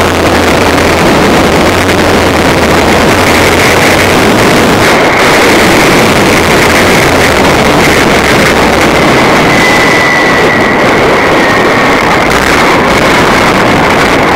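Loud, steady rush of wind on the microphone of a camera riding a fast zipline descent, with a faint high whine running along with it from a few seconds in.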